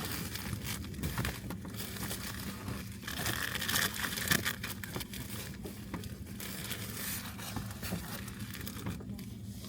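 Rustling, crinkling handling noise with many small scattered clicks, over a faint steady low hum.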